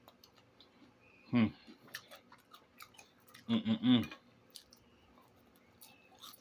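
Close-up chewing and small wet mouth clicks of a person eating. A short closed-mouth hum comes about a second and a half in, and three quick hums near the middle.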